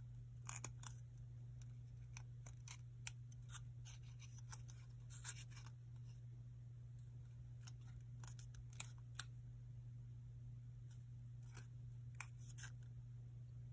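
Origami paper crinkling and crackling in the fingers as a small sheet is folded and creased: short, scattered crackles, a couple a little sharper, over a steady low hum.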